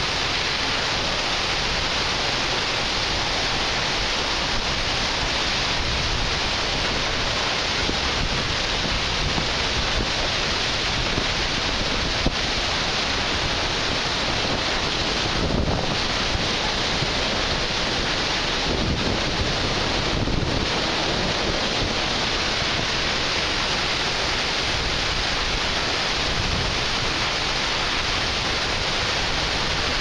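Waterfall and cascading stream: a steady roar of falling and rushing water, with a few short deeper swells near the middle.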